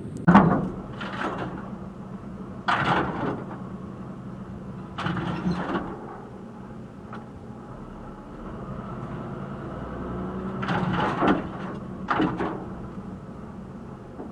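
Lorry engine running steadily, with a series of sudden knocks and scrapes, the loudest just after the start and a cluster about eleven seconds in.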